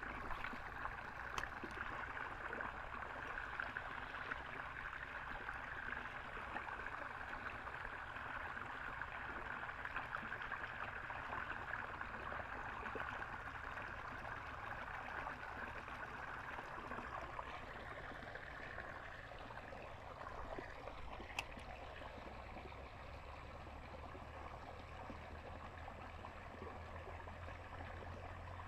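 Water trickling and running steadily in a shallow drainage ditch, easing a little in the last third, with a single sharp click about 21 seconds in.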